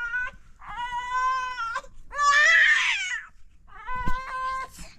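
A young child crying in three long, high wails, the last one shaky and pulsing.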